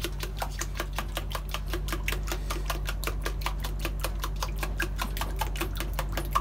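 A fork whisking yogurt in a small plastic bowl: a quick, even run of clicking taps against the bowl, several a second.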